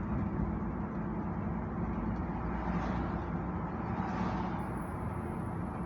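Chevrolet C10 pickup under way: a steady engine drone mixed with road noise, heard from inside the cab.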